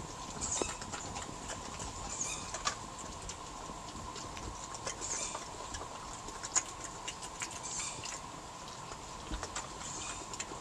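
Two European badgers eating peanuts from a plastic feeding tray: irregular crunching and clicking as they chew and root through the nuts.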